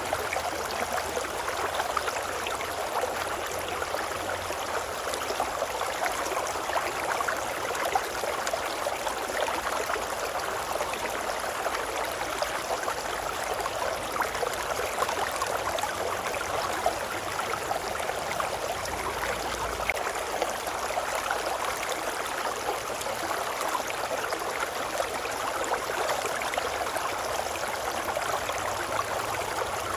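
Babbling brook: shallow running water, a steady, even rush with fine splashy detail.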